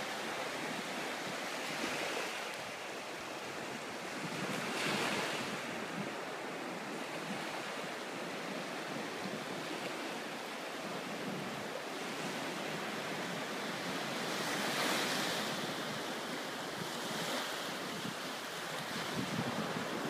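Small ocean surf breaking and washing up onto a sandy beach: a steady rushing hiss that swells louder with each wash, most strongly about five seconds in and again about three-quarters of the way through.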